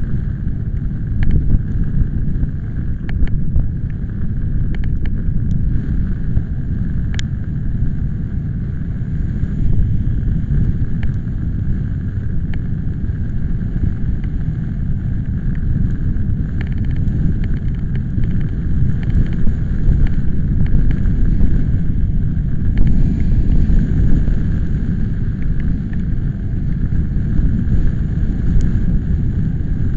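Storm wind buffeting the microphone as a heavy, steady low rumble that rises and falls in gusts, with scattered sharp ticks through the first several seconds.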